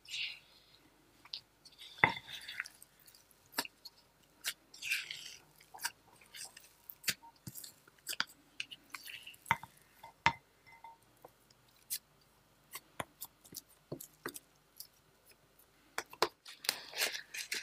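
Silicone spatula pressing and scraping crumbly butter-and-flour shortcrust dough against a glass bowl: irregular sharp taps and short scrapes. Near the end, a louder rustle of plastic wrap as the dough is gathered.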